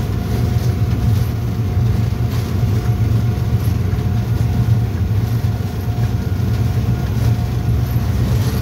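Diesel locomotive running at speed, heard from inside its cab: a steady, loud low drone of the engine and running gear on the rails.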